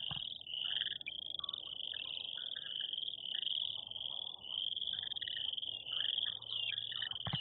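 A chorus of frogs trilling: high, pulsing trills overlapping almost without a break, with shorter, lower calls scattered among them. A single click near the end.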